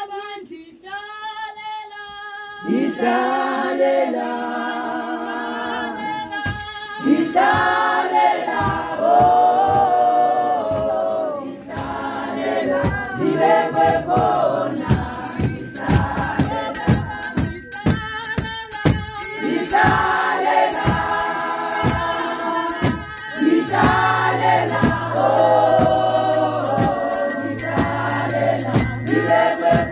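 Church congregation singing a hymn together: a single voice leads off and the full group of men and women joins about three seconds in. From about halfway a steady rhythmic beat of sharp strokes runs along with the singing.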